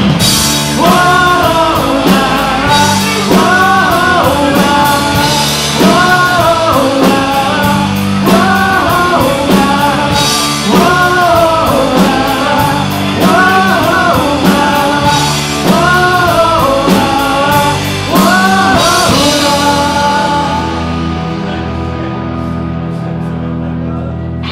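Live rock band playing: electric guitars, bass and drums with a woman singing, the melody in repeating arching phrases. About 20 seconds in the drums and cymbals stop and a final chord rings on, slowly fading as the song ends.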